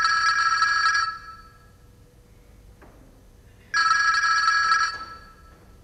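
Geemarc CL8400 big-button flip mobile phone ringing with an incoming call: two electronic rings of about a second each, with a gap of about two and a half seconds between them.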